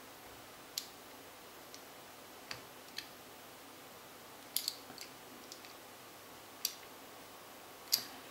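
Scattered light clicks and ticks of a small precision tool working against an old metal vape connector to pull out its rubber insulating ring, the loudest click near the end.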